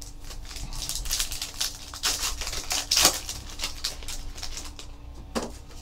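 Foil wrapper of a football card pack being torn open and crinkled while the cards are slid out: a run of quick crackling rustles, loudest about two to three seconds in.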